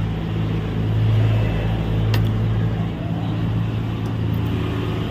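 Steady low hum of a running motor, easing slightly about three seconds in, with a single sharp click about two seconds in.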